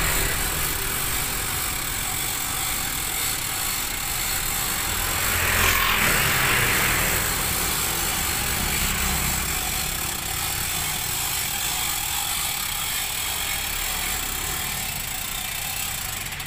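Road traffic going by, a steady rumble and hiss, with one vehicle passing close about six seconds in.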